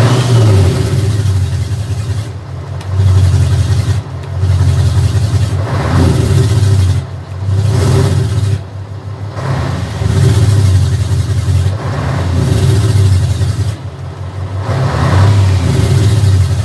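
V8 truck engine revved again and again in about eight surges, each rising and dropping back between blips.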